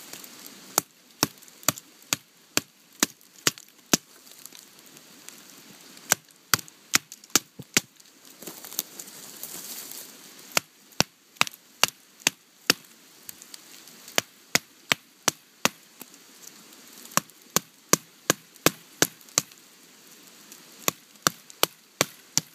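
Wooden baton knocking on the spine of a Condor Bushlore knife, batoning the blade down through a small trunk. Sharp knocks come in six quick runs of several strikes, about two or three a second, with short pauses between.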